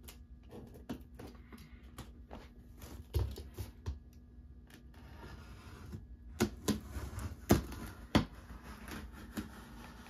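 Cardboard box being opened: a utility knife slitting the packing tape on top, with irregular sharp taps and knocks of hands on the cardboard, the loudest a few clustered about two-thirds of the way through.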